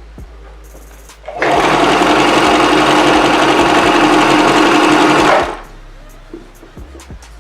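Singer Promise 2 sewing machine running at a steady speed for about four seconds, stitching a hair weft onto a wig cap; it starts a little over a second in and stops fairly suddenly. Background music with a beat plays quietly before and after.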